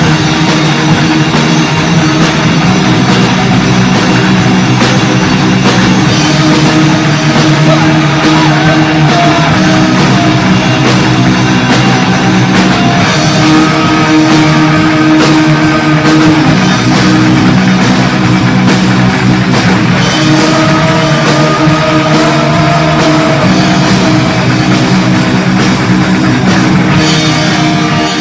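Punk rock band playing: distorted electric guitars, bass guitar and drum kit, loud and continuous without a break.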